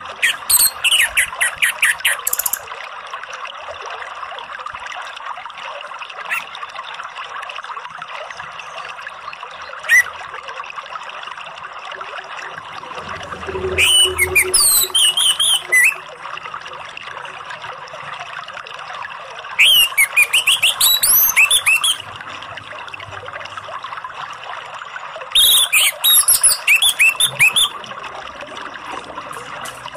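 Orange-headed thrush (anis merah) singing in full voice: four loud bursts of about two seconds each, fast runs of sweeping whistled notes rising and falling, with a couple of single short calls in between.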